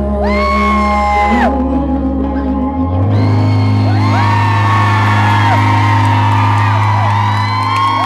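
Live rock band playing: electric guitar and bass under a male lead vocal holding long notes. Fans close by sing along and whoop.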